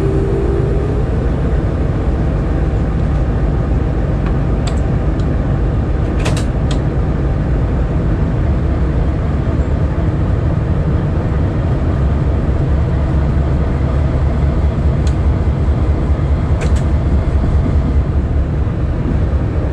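Diesel locomotive engines running with a steady low rumble as the freight train backs slowly, with a few short clicks.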